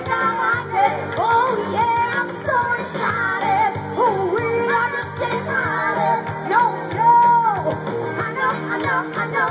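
Live rock band playing: a woman singing lead into a microphone over electric guitar and the band's backing, with one long held note about seven seconds in.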